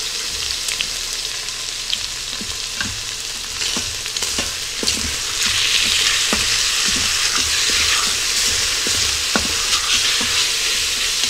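Diced chicken breast sizzling in hot oil in an Instant Pot's stainless steel inner pot on the sauté setting. The sizzle grows louder about halfway through as a wooden spatula starts stirring the pieces, with scattered knocks and scrapes against the pot.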